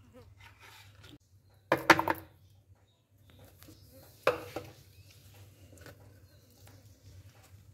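A knife knocking and scraping against a plastic tub and a plate while hard-frozen homemade ice cream is pried out and cut, too firm to come out or cut easily. A quick rattle of knocks about two seconds in is the loudest, then a single sharp knock about four seconds in.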